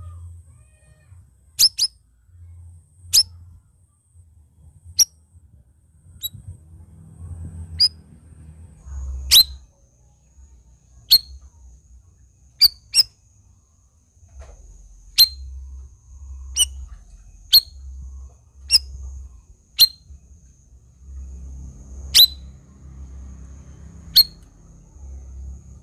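Caged cucak rawis giving short, sharp chirps that drop steeply in pitch, one every second or two, over an intermittent low rumble. A faint, thin, steady high tone runs behind the calls from about nine seconds in.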